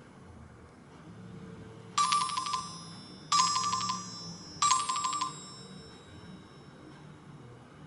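Nokia Asha 302 ringtone: a short, bright electronic chime with a quick trill of notes, sounded three times about 1.3 seconds apart, each dying away within a second.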